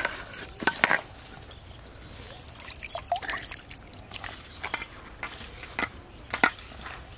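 Hands kneading a damp, crumbly fish-bait mixture in a stainless steel bowl, giving irregular short crunching and scraping sounds.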